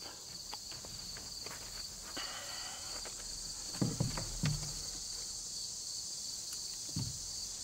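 Steady shrill chorus of insects in woodland, with a few soft knocks about four seconds in and again near the end.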